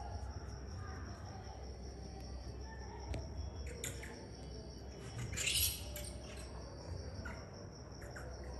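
Crickets chirping in a steady, high continuous trill over a low rumble. A brief hissing rush about five seconds in is the loudest sound, and a few faint ticks come and go.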